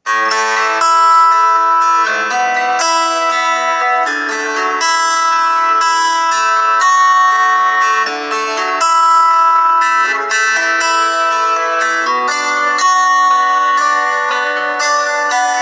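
A built-in Honor 7A (EMUI) phone ringtone: a melody of quick plucked notes that starts abruptly out of silence and plays on steadily without a break.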